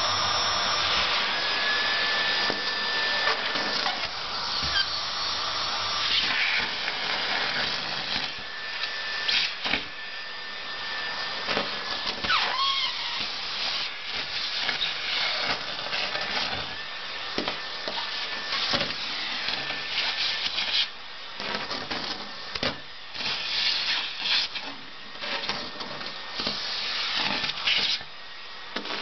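Nilfisk canister vacuum cleaner running, sucking shredded paper off a carpet through its metal wand. The paper crackles and rattles irregularly through the nozzle and hose over the steady suction noise, with a thin whistle that comes and goes.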